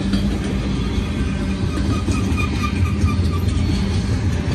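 Double-stack intermodal train's container well cars rolling past, with a steady low rumble and hum of wheels on the rails.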